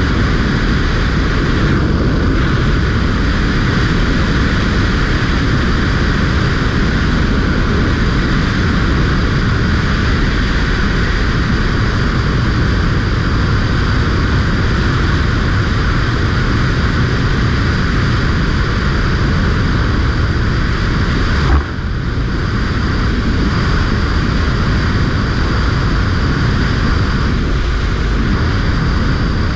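Honda VFR800Fi's V4 engine running steadily at road speed under heavy wind rush on the microphone, with one brief knock about two-thirds of the way through.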